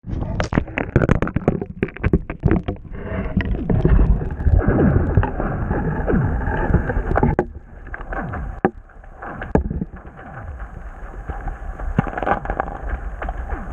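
Muffled water sloshing and gurgling picked up by an underwater camera beneath the ice, with a clatter of sharp knocks in the first few seconds and a few more later.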